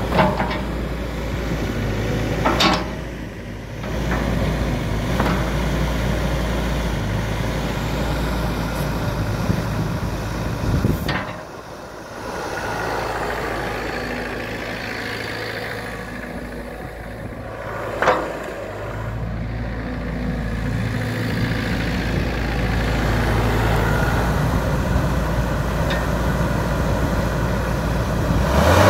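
Terex TC35 mini excavator's diesel engine running steadily at a low, even hum, with a few short knocks from the machine.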